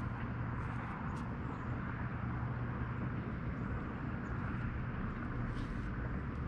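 Steady outdoor background noise: an even hiss with a constant low hum underneath, and a couple of faint clicks.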